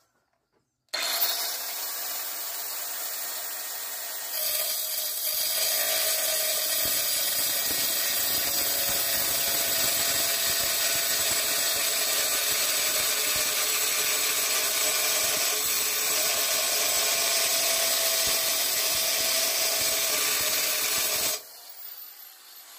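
Corded angle grinder with a cut-off wheel starting up about a second in and spinning free for a few seconds, then cutting through a metal plate with a louder, steady grinding. Near the end it is switched off and the wheel winds down.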